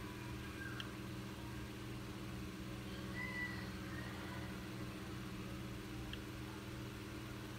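Steady low hum of background noise, with a few faint ticks as a pencil tip taps a capacitive touch keypad. A brief faint high tone comes about three seconds in.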